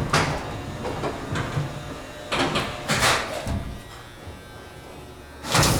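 Vintage Otis elevator doors sliding and rattling in several short bursts, with a louder stretch of noise near the end.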